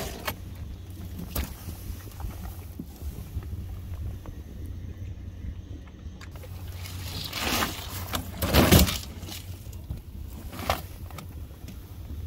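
Small boat's two-stroke outboard motor running with a steady low drone, with a few brief louder rushes of noise, the loudest about two-thirds of the way through.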